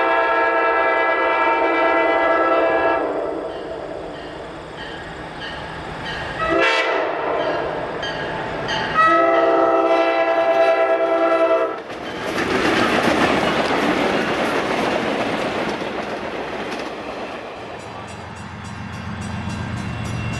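Diesel locomotive air horn sounding a chord in three blasts, long, short, long, as it nears a grade crossing. About twelve seconds in, loud rushing wheel-on-rail noise takes over and fades. Near the end a low steady diesel engine hum comes in.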